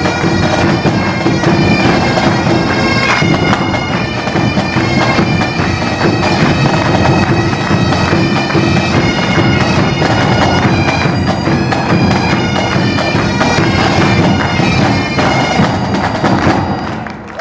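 Pipe band playing: bagpipes sounding a tune over their steady drones, backed by snare, tenor and bass drums. The playing dies away just before the end.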